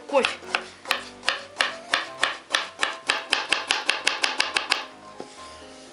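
Kitchen knife slicing a carrot into rounds on a plastic cutting board: a run of sharp knocks of the blade on the board, speeding up from about three to about five a second and stopping about five seconds in.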